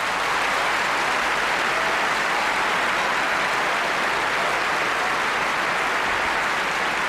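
Audience applauding: dense, steady clapping with no music under it.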